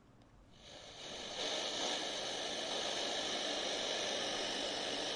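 XHDATA D-109 shortwave radio's speaker giving steady static hiss on 17790 kHz in the 16 m band, with no station audible: the signal is not coming through. The hiss fades in about half a second in and is at full level by about a second and a half.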